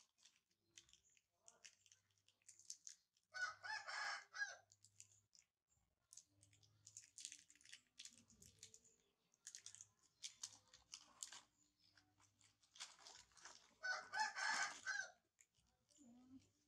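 Crinkling and rustling of plastic candy wrappers as a baby monkey rummages through a box of sweets and bites at a wrapped candy. Two loud, drawn-out animal calls of about a second each stand out, one about three and a half seconds in and one near the end.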